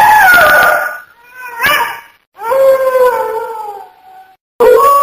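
Dog howling: a long falling howl, a short rising wail, then another long falling howl. Near the end a steady held musical note starts.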